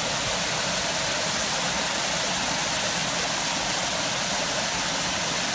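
Hot-spring spa pool's hydrotherapy water jets churning the water: a steady, unbroken rush of splashing, bubbling water.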